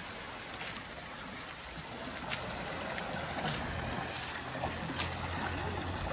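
Small forest stream rushing over a little cascade, with splashing from a person wading in the water, getting a little louder about two seconds in. A few brief sharp clicks.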